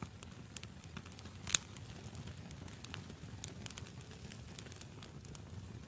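Wood fire crackling with scattered sharp pops and snaps over a low rumble of burning, one pop about a second and a half in much louder than the rest.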